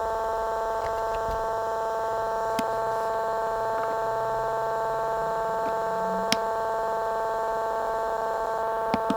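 Baby monitor's speaker giving out a loud, steady electronic buzz, the fault noise that has started appearing on it, with a few faint clicks over it.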